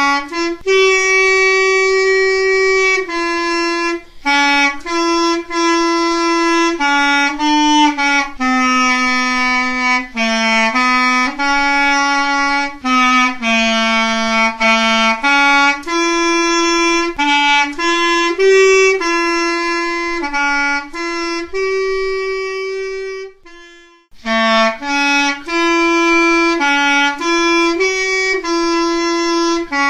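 Solo clarinet playing a slow melody, one note at a time, with a short break for breath about three quarters of the way through.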